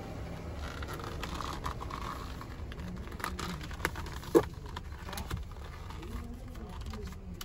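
Rustling and small clicks of a tight leather steering wheel cover being stretched and pushed onto a car's steering wheel by hand, with one sharp snap about four seconds in, over a low steady rumble.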